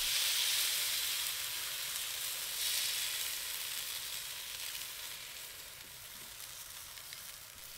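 Takoyaki batter sizzling as it is poured into the hot, oiled hollows of a takoyaki pan. The hiss is strongest at first and slowly dies down.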